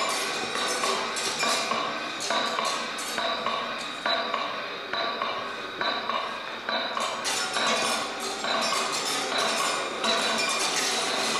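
Improvised experimental sound piece from amplified sculptures and electronics: a dense stream of rapid clinking, pinging and knocking strikes over a few sustained tones. The bright clatter drops away for a couple of seconds in the middle, then returns.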